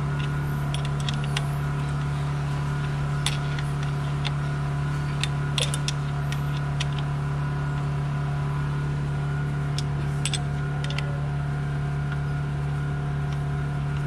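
A steady machine hum, like a running fan or air-conditioning unit, with scattered light clicks and taps from hand tools and parts being handled in the engine bay.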